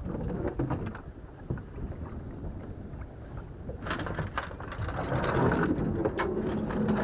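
Low rumbling noise and water sounds around a small boat. From about four seconds in comes a louder spell of irregular clicks and crackling as a fishing rod and reel are worked against a fish on the line.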